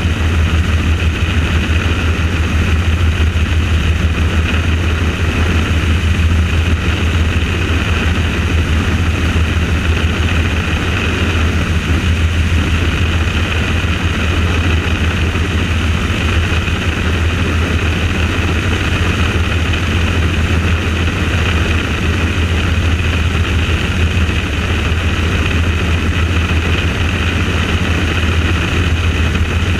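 Helicopter in flight: loud, steady rotor and engine noise with a dense low throb that does not change.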